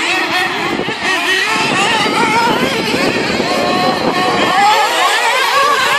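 Several 1/8-scale radio-controlled off-road racing cars driving around the track, their motors buzzing and rising and falling in pitch as they rev up and back off.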